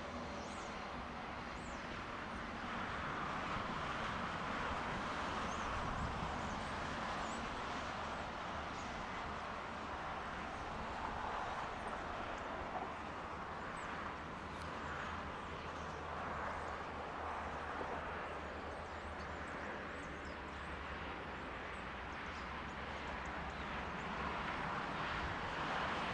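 Steady outdoor background hum with no train passing, with faint bird chirps scattered through it.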